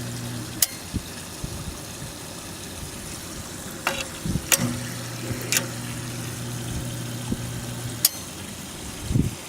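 Well pump system at its cut-in pressure: a steady electric hum that stops about half a second in, starts again midway and stops near the end, each change marked by a sharp click from the pressure switch points. Water runs throughout.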